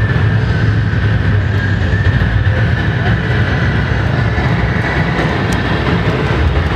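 A convoy of scale RC model trucks driving slowly past, giving a steady low engine-like rumble.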